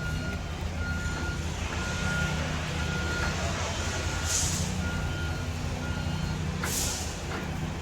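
A heavy vehicle's warning beeper sounds a single tone about once a second over its steady running engine. Short air hisses come about halfway through and twice near the end.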